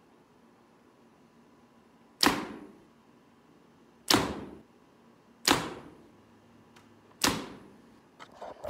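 Four compound-bow shots, each a sharp crack of the string's release and the arrow punching through a paper-tuning sheet, spaced about one and a half to two seconds apart. A few light clicks follow near the end.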